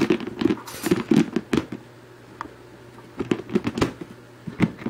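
Plastic storage bin lid handled by hand: a run of clacks and knocks, pausing in the middle, then starting again.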